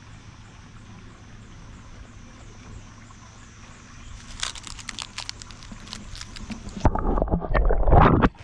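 Crunching and rustling footsteps on a dry outdoor trail, over a faint high chirping that repeats a few times a second. Near the end comes a loud, rough rumble of handling or wind on the microphone, cut off abruptly.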